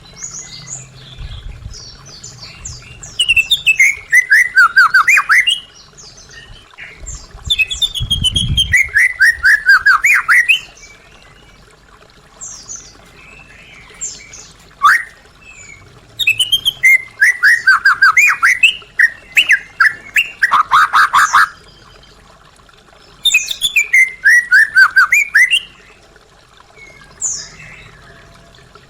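White-rumped shama (murai batu) singing: about four loud phrases of rapid notes, each sliding down in pitch, some topped by a fast high rattle, with short pauses and single calls between them.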